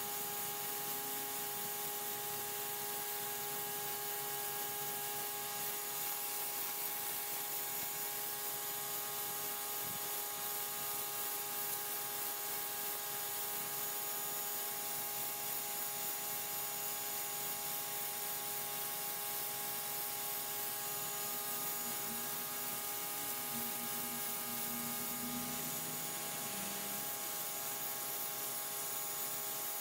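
Simoniz 1800 PSI / 1.4 GPM electric pressure washer running steadily: the motor and pump give a constant hum while the high-pressure water jet hisses against concrete.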